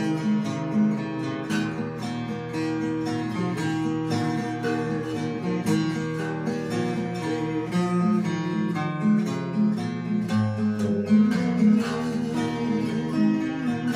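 Solo acoustic guitar playing an instrumental break of a folk song, a continuous run of plucked notes and chords with no voice.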